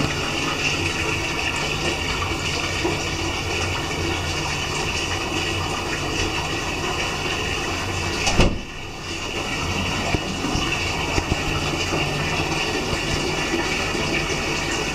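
Thin stream of water from a bathroom faucet running steadily into a ceramic vessel sink. About eight and a half seconds in there is a short knock as the faucet handle is moved, and the level dips for a moment before the steady noise returns.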